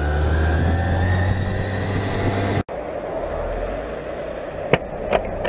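BMW K 1600 GTL's inline-six engine accelerating, its pitch rising steadily for about two and a half seconds. It then cuts off suddenly to a steadier running sound with two sharp clicks near the end.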